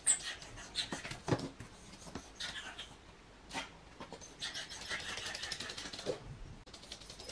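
A miniature pinscher's claws scratching and clicking at a closed door and on the laminate floor in quick, irregular strokes, busiest about four to six seconds in. This is the door-scratching of a dog with separation anxiety.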